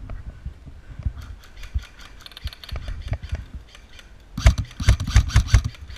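Scattered sharp clicks and knocks, then a quick run of heavier knocks, about six a second, lasting just over a second near the end.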